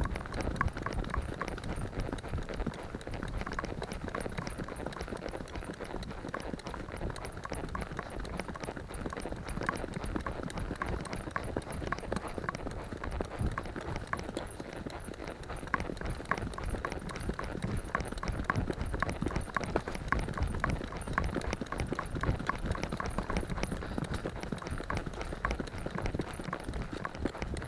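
Ridden horse's hooves clip-clopping in a steady, even rhythm along the road shoulder, heard from the saddle.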